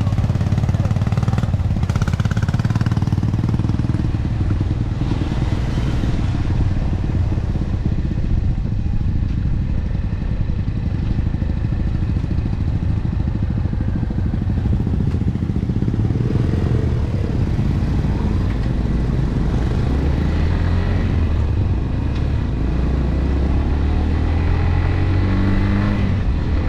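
AKT RX1 motorcycle engine running steadily while riding on the road, heard close from the bike, with wind and road noise. The engine note rises near the end as the rider speeds up.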